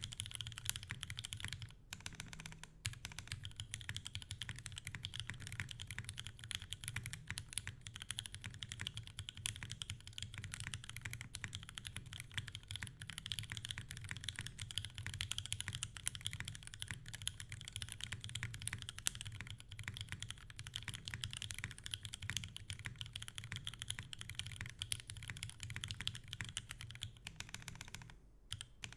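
Fast, continuous typing on a TGR Jane V2 CE mechanical keyboard with Gateron Phantom Brown tactile switches lubed with 205g0, a top-mounted carbon fibre plate and GMK keycaps. A low thump, mostly from the spacebar on the desk, runs under the key clacks, and the room adds some echo. The typing pauses briefly near the end.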